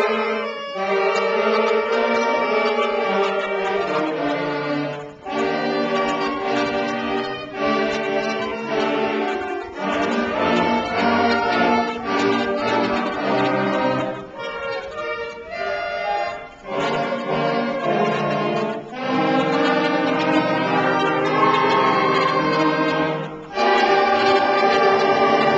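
A student concert band of wind instruments playing a piece: full held chords in phrases, with brief breaks between phrases every five or six seconds.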